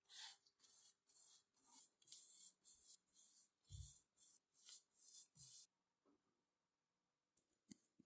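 Faint, irregular scratching strokes, about a dozen, stopping a little past halfway, followed by near silence with a couple of small clicks near the end.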